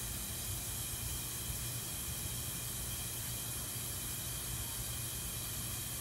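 Misting nozzle spraying fine water mist into a bird cage: a steady, even hiss with a steady low hum underneath.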